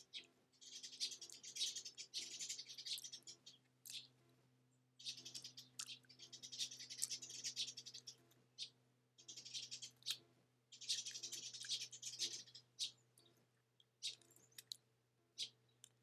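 Blue tit bathing in a shallow birdbath: three bouts of splashing as it flutters its wings in the water, each one to three seconds long, with scattered small ticks between them. A faint steady low hum runs underneath.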